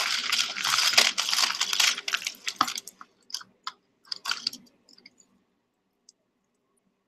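Costume jewelry (metal chains, bangles and bead strands) jangling and clicking as hands rummage through a box of it, a dense rattle for about three seconds, then a few separate clicks as one piece is picked out.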